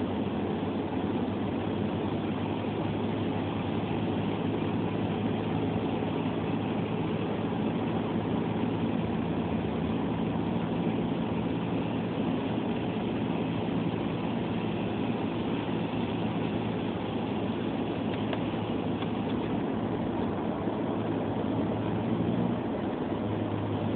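Steady road noise heard inside a moving car: tyre hiss on a wet, slushy highway over a low engine hum. The hum shifts briefly near the end.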